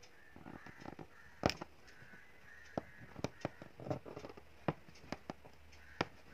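Aari hook needle punching in and out of taut satin fabric and drawing silk thread through while load-stitching a leaf: irregular sharp clicks and pops, the loudest about a second and a half in.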